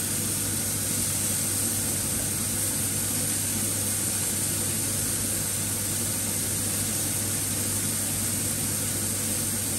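Steaks frying in butter and garlic in a frying pan, sizzling steadily, with a constant low hum underneath.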